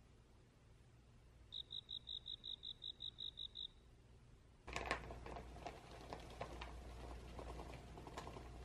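A quick, even run of about a dozen short, high peeps at one pitch. Then, from about halfway through, cake flour is poured into a glass mixing bowl: a soft rustling patter with light clicks, opening with a sharp knock.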